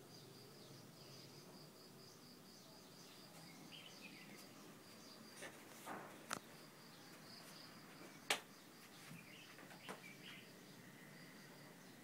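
Faint crickets chirping in a high, rapidly pulsing trill that breaks off now and then, with a few short bird chirps and two sharp clicks, the louder one about eight seconds in.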